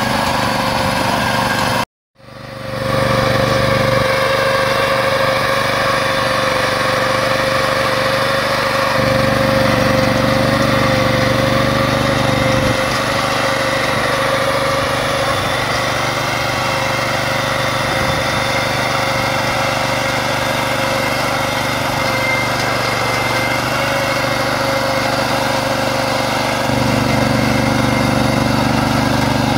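Small petrol engine of a Pasquali two-wheeled tractor running steadily while its rotary plough works through the soil. The sound cuts out completely about two seconds in and fades back up over about a second.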